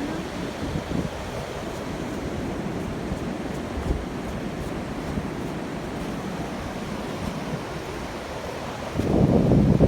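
Wind buffeting the microphone: a steady low rumbling noise, with a stronger gust about nine seconds in.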